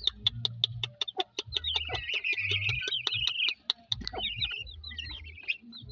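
A brood of chicken chicks and guineafowl keets peeping with high, wavering chirps and a long trill in the middle, over a hen's low clucking and a rapid run of short sharp clicks.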